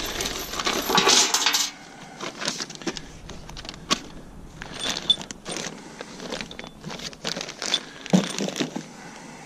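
Loose steel hardware from the loader bucket kit (bolts, washers, nuts and spacers) clinking and rattling as it is handled, with scattered sharp clicks and a few short ringing clinks.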